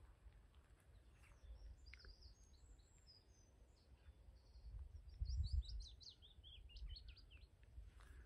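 Willow warbler singing faintly: a short phrase of sweet notes that steps down the scale over a couple of seconds, about halfway through. Scattered high notes come before it, and a low rumble rises under the song.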